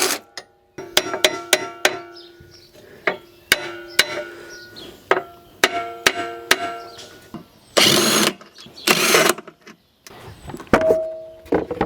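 Metal tools and parts clinking and knocking on the wood chipper's steel housing, each knock ringing briefly, as it is being unbolted. Two longer rasping noises of about half a second come near the end.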